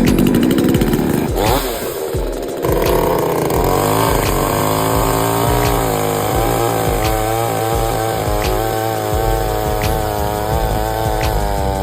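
ELECTROLITE petrol chainsaw's two-stroke engine running. It revs up in the first couple of seconds, then holds a high, slightly wavering pitch.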